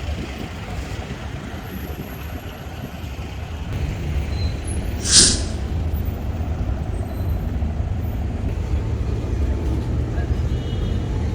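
Steady low outdoor rumble, with one short, sharp hiss about five seconds in.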